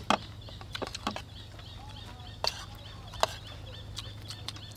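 A few sharp clicks of metal spoons on plates as people eat, against a rapid, repeating chirping in the background.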